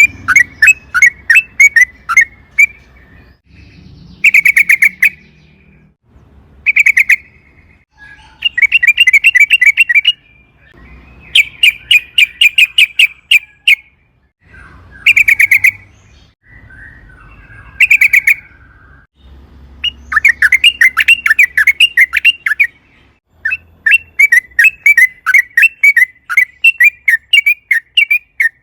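Yellow-vented bulbul (trucukan) singing in repeated bursts of fast chattering notes, with short pauses between phrases; the recording is loud enough to distort on the peaks.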